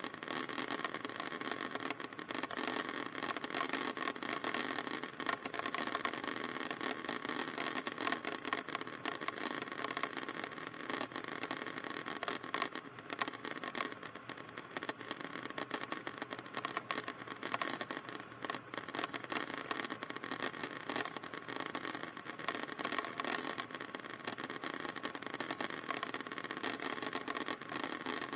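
Cessna 152's Lycoming O-235 four-cylinder engine running steadily, an even drone heard inside the cockpit.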